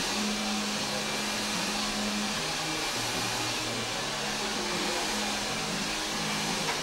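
Hair dryer running steadily, an even rushing whir of motor and blown air.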